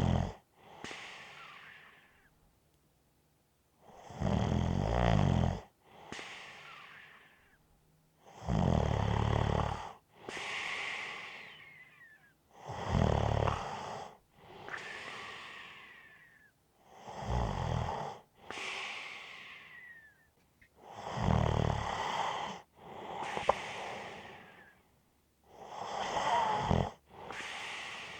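A person snoring steadily. Each breath brings a loud, buzzing snore followed by a softer breath that fades out, repeating about every four and a half seconds.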